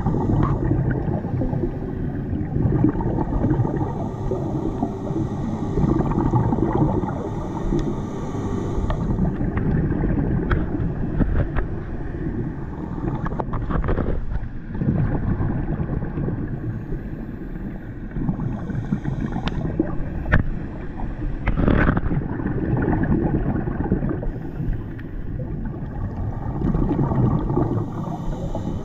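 Underwater ambience on a scuba dive: a steady low rumble and gurgling of divers' exhaled regulator bubbles that swells and fades every few seconds, with a few sharp clicks in the middle.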